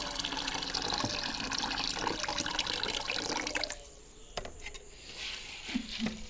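Water pouring from a bowl of soaked urad dal into a plastic tub of water as the rinse water carrying the loosened husks is drained off. The pour stops about three and a half seconds in, leaving a few drips and small splashes.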